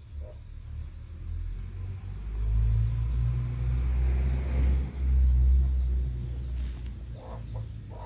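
A low rumble that swells about two seconds in and eases off near the end.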